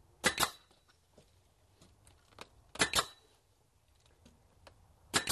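Pneumatic nail gun firing three times, about two and a half seconds apart, each shot a sharp double crack as it drives a nail into wooden brick molding.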